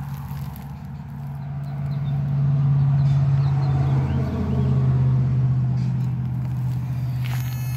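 Electronic mole and vole repeller stake buzzing in the ground with a steady low drone that grows louder about two seconds in and drops slightly in pitch about four seconds in. The sound is meant to drive voles and moles away.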